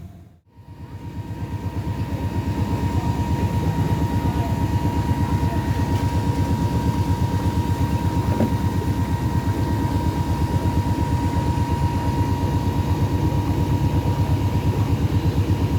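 A cruise boat's engine running steadily with a fast, even low pulse and a thin steady whine above it. The sound drops out briefly about half a second in and builds back up over the next few seconds.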